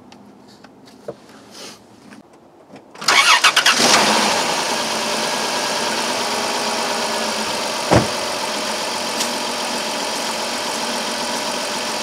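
A 2002 Chrysler Town and Country's 3.3-litre V6 cranks briefly and starts about three seconds in, then idles steadily, much smoother now that a new ignition coil has cured the cylinder 5 misfire. A single knock comes about eight seconds in.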